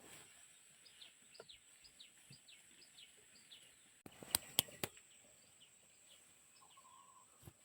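Faint repeated bird chirps, short notes falling in pitch about two a second, over a thin steady high-pitched whine; three sharp clicks come about four and a half seconds in.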